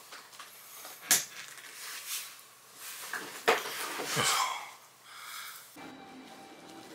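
Handling noise as a person moves right up against the camera: two sharp knocks, about a second in and again about halfway, with rustling around the second. Near the end it gives way to a steady background hum.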